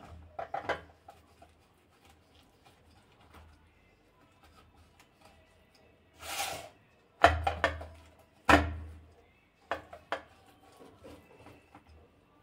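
A knife scoring cut lines into coconut barfi in a steel plate: faint scrapes and clicks, a short hiss about six seconds in, and two sharp knocks about a second apart a little after that.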